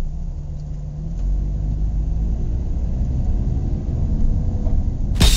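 A car's engine runs at low speed, a steady low rumble heard from underneath the car as it rolls slowly over the camera. About five seconds in comes a sudden loud crash, and then the sound cuts off.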